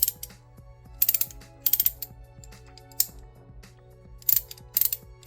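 A DuraTech 72-tooth box-end ratcheting wrench clicking as its ratchet is swung back and forth by hand, in about five short bursts of rapid clicks with a single click in between. It gives a solid click.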